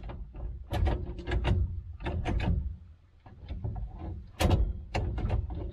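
The three-speed column shift lever and linkage of a 1968 Chevrolet C10 being worked through the gears, clicking and clunking several times, with the loudest clunk about four and a half seconds in. It shifts without jamming.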